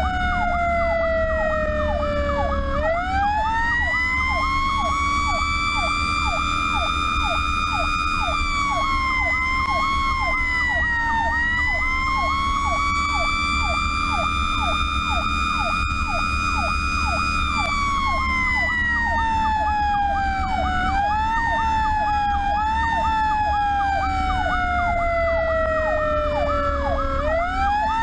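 Pierce fire truck's sirens on an emergency response. One siren rises and falls in long slow sweeps, winding up about three seconds in and again near the end. A second siren yelps in fast, repeating cycles beneath it, over the steady low drone of the truck's engine.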